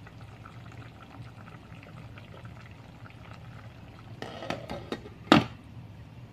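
Chicken-feet adobo simmering uncovered in a metal pot, the sauce bubbling faintly and steadily as it reduces. About four seconds in comes a short clatter, then a sharp clink as a glass lid is set onto the pot.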